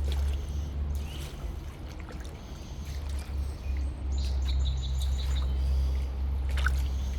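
Water sloshing and trickling as someone wades through a shallow river, over a steady low rumble, with small birds chirping now and then, including a quick run of high chirps midway.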